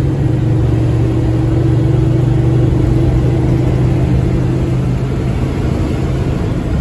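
Bus engine running steadily at speed, heard from inside the cabin: a continuous low drone with a steady hum above it, easing slightly near the end.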